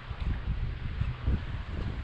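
Strong wind buffeting the microphone: an uneven, gusting low rush.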